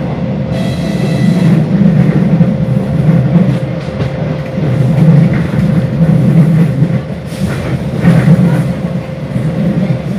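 Running noise of a moving train heard from inside the carriage: a steady low rumble of wheels on the rails that swells and eases. There is a brief high whine about half a second in.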